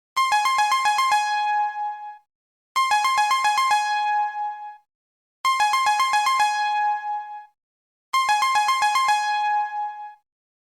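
Electronic two-tone chime sound effect imitating a Keisei Line train cab signal: a quick run of about seven alternating high and low dings that ring on briefly, repeated four times about every 2.7 seconds.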